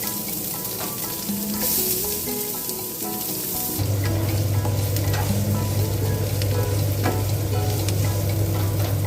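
Chopped onions sizzling as they fry in hot oil with roasted whole spices in a pan, with a louder burst of sizzling about two seconds in. A low steady hum comes in about four seconds in.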